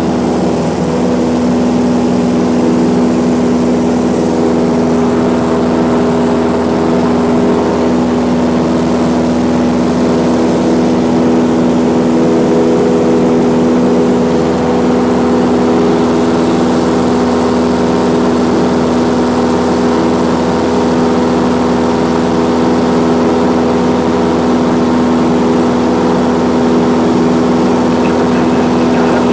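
Cessna light aircraft's piston engine and propeller running steadily, a loud even drone with a strong low hum.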